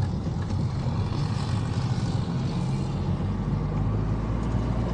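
Car driving along a road: steady low engine hum and road noise.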